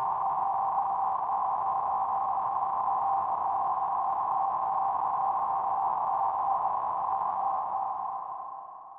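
Emergency Alert System-style attention tone: a loud, steady electronic tone of two close pitches, slightly rough, that fades away near the end.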